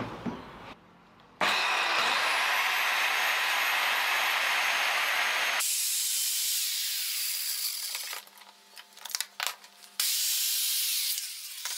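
Handheld circular saw starting up with a rising whine and cutting along a wooden plank for about four seconds, then winding down with a falling whine. A few knocks of wood follow, then a second short run of the saw that also winds down near the end.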